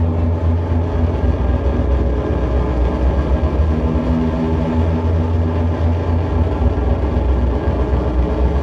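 Live electronic noise music: a loud, heavy low rumbling drone under a dense wash of noise, with a steady hum on top that drops out and comes back every few seconds.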